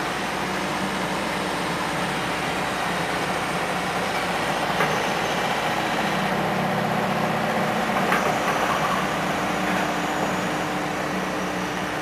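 Takeuchi FR-series mini excavator's diesel engine running steadily while its hydraulics shift the offset boom to one side and back. The engine note strengthens a little midway, under the hydraulic load.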